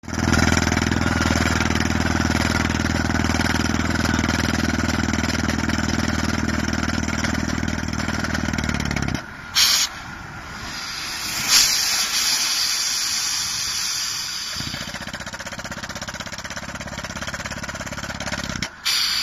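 Down-the-hole drilling rig running and hammering, a fast, even pounding, for about nine seconds. The pounding then stops and compressed air blows out of the borehole in loud hissing blasts, with the rig running more quietly until another blast near the end.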